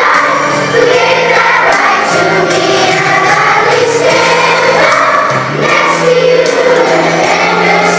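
Large children's choir singing a song, over a steady instrumental backing track.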